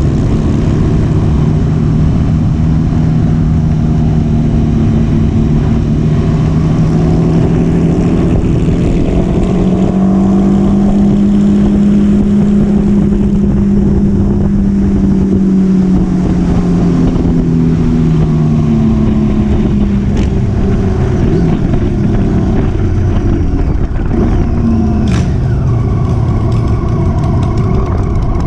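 Motorcycle engine running at a steady cruise, its pitch drifting slowly up and easing back down, under constant wind rush on a GoPro microphone.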